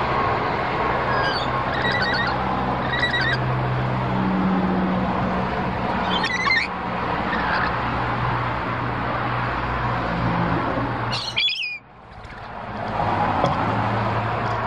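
Birds squawking: about five short, wavy calls, one near the end louder than the rest. Behind them is a steady rushing noise with a low hum, which cuts out about eleven and a half seconds in and then builds back.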